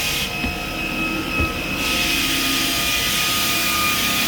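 Floor edger sander running with a steady motor whine over a hiss.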